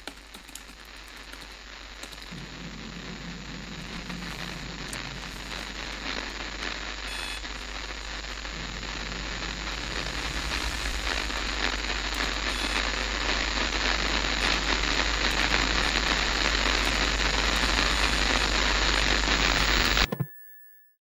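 A steady hiss of noise over a low hum, swelling louder and louder, then cutting off suddenly near the end, followed by a short beep.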